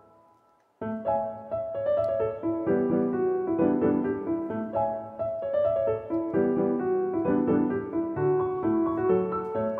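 Background piano music. One passage fades out to near silence and a new piano phrase begins about a second in, continuing as a steady run of notes.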